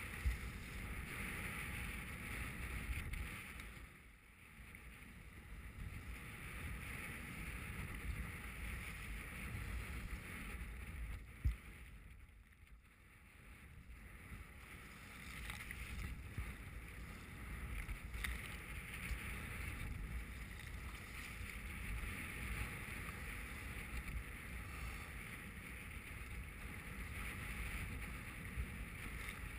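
Wind and choppy water rushing around a sea kayak in strong wind and steep waves, a steady hiss over a low rumble, muffled for a moment twice. Two sharp knocks stand out, one right at the start and one about eleven seconds in.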